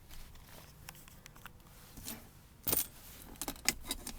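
Scattered light clicks and rattles of handling inside a pickup's cab, with a sharper click about two and a half seconds in and a quick run of small clicks near the end.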